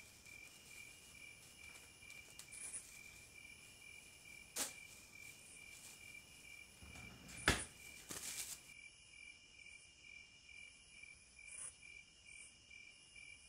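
A cricket chirping faintly in a steady, even rhythm. About four and a half seconds in there is a sharp click, and at about seven and a half seconds a louder knock, followed by a brief rustle.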